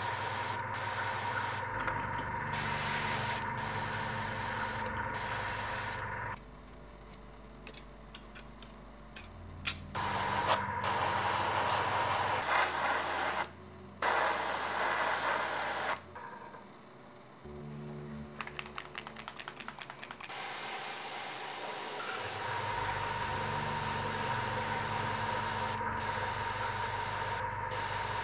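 Airbrush spraying paint in bursts: a steady hiss of air and paint that breaks off for a few seconds about six seconds in, briefly around thirteen seconds, and again around sixteen seconds.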